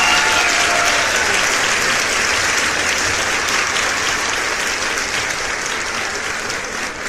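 Large audience applauding, the applause slowly dying down.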